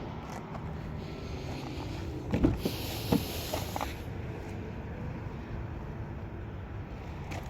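Two short knocks about a second apart, over a steady low background rumble.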